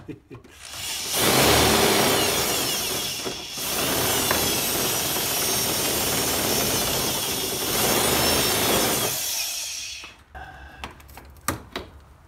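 Power drill running with its bit grinding into pegboard to widen a hole, for about nine seconds with a brief let-up a few seconds in. A few light knocks and clicks follow near the end.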